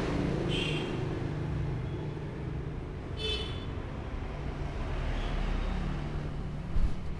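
Steady low rumble of road traffic, with two short high-pitched squeaks, one under a second in and one about three seconds in, and a single thump near the end.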